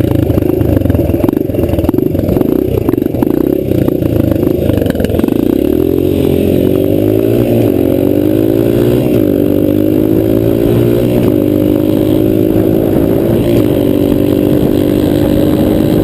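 Dirt bike engine running while riding. It is choppy with knocks and rattles over the first few seconds, then the revs climb and drop back at several gear changes.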